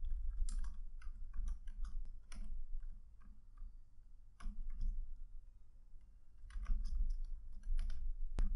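Computer keyboard typing in quick runs of key clicks, broken by two short pauses.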